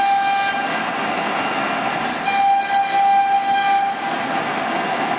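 The spindle motor of a 1325 CNC router whines steadily while its bit cuts into a wooden board. Noise from the cut rises and falls as the bit moves.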